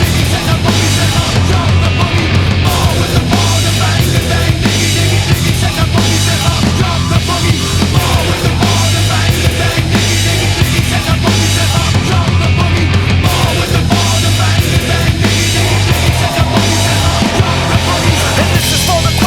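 Loud hard rock music with distorted guitars and a steady driving drum beat.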